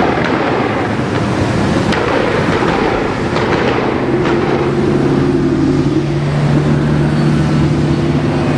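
A line of sports cars rolling slowly past one after another, engines running steadily without revving; a steady low engine hum comes through from about halfway.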